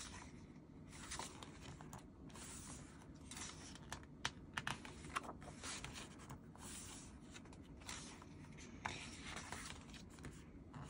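Pages of a stapled photobook turned by hand: faint paper rustling and sliding, with a few sharp ticks about four to five seconds in.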